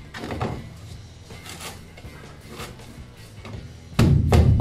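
Rigid insulation board being pushed and worked into a tight fit between wooden ceiling battens, with faint scrapes and knocks. About four seconds in, loud background music with a drum beat starts suddenly.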